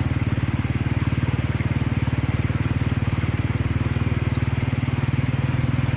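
Small motorcycle engine running steadily with a rapid, even pulse.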